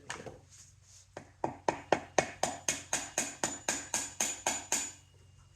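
Hammer tapping a seal driver about four times a second, with a short metallic ring on each strike, seating a new rear main oil seal into a BMW R69S engine case.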